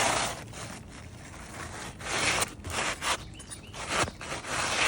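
Gritty scraping and rustling of asphalt roof shingles being handled and dragged on the roof, in several short bursts.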